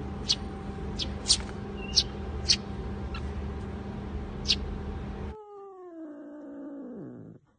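A handful of short, high sparrow chirps over a steady hum. Then, for the last two seconds or so, a tabby-and-white cat gives one long, drawn-out meow that slides steadily down in pitch.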